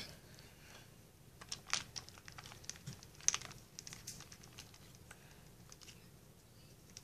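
Scattered light clicks and taps of small plastic toys being handled: a pony figure knocking against a plastic toy carriage, with one sharper click about three seconds in.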